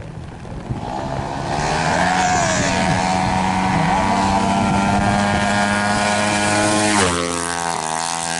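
Drag-racing motorcycle engine running flat out at high revs, its pitch high and steady, then dropping suddenly near the end.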